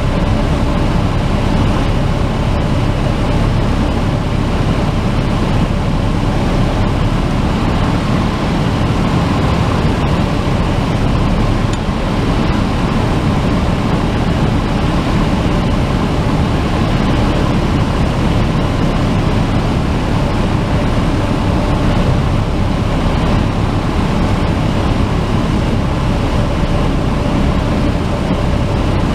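Cessna 172's engine and propeller droning steadily, heard inside the cockpit.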